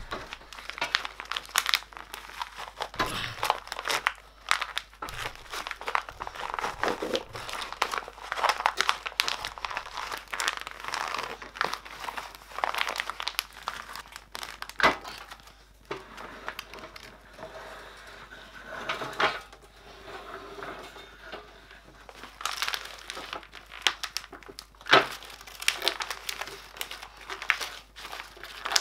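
Old yellowed plastic film covering being peeled off a wooden desktop and bunched in the hands: irregular crinkling and crackling, with a few sharper snaps.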